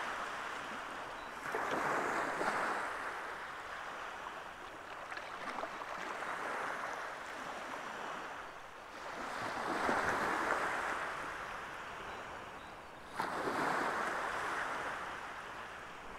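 Small waves washing onto a sandy beach, the rushing noise swelling and fading about every four seconds.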